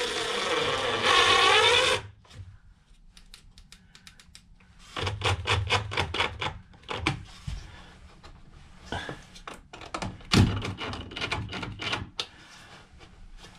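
DeWalt cordless drill/driver driving screws through a plastic ABS fuse block into a wooden board: the motor runs for about two seconds at the start, then bursts of rapid clicking come twice, a few seconds in and again near the end.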